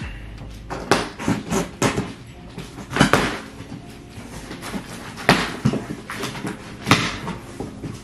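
Cardboard shipping box being handled and opened by hand: a string of sharp knocks with scraping, rustling noises between them, the loudest about three, five and seven seconds in.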